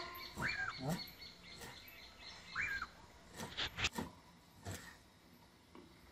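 A bird calling twice, each a short call that rises and falls in pitch, over a faint high steady tone. A few sharp clicks or knocks come a little after the second call.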